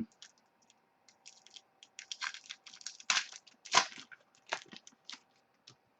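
Football trading cards and their foil pack wrappers being handled: a string of irregular crinkling and rustling sounds.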